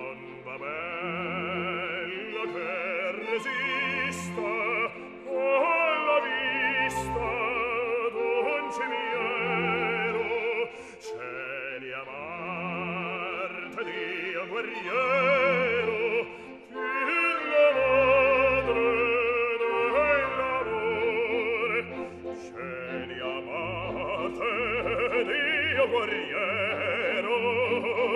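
Operatic music: a singer with strong vibrato over instrumental accompaniment, with sustained notes that rise and fall in pitch.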